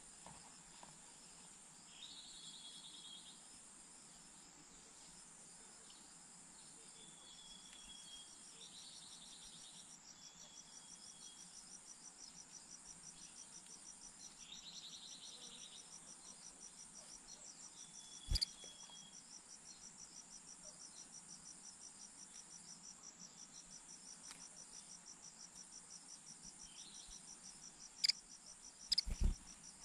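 Faint chorus of crickets and other insects: a steady high chirring with a fast, even pulsing trill coming in after several seconds. Short buzzy high calls sound a few times, and there are sharp clicks once midway and twice near the end.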